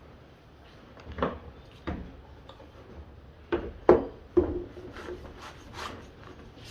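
Sandpaper rubbing on a wooden fruit bowl of ipê hardwood in short, separate strokes, the loudest about four seconds in, with fainter strokes after.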